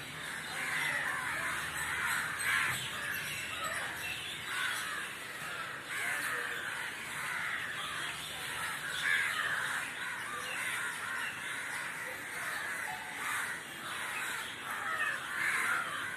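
Many crows cawing at once, their calls overlapping in a continuous clamour.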